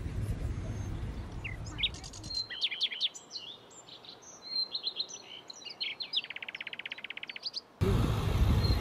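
Several birds chirping with quick high pitch glides, including a fast trill of about eighteen notes a second late on. A low rumble is heard for the first two seconds or so, and a louder rumbling noise cuts in abruptly near the end.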